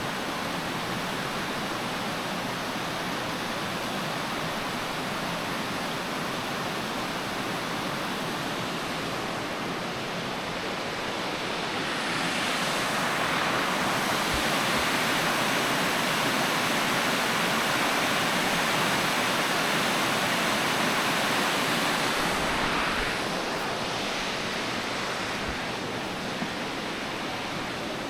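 Rushing river water, a steady hiss that grows louder for about ten seconds in the middle, then eases back.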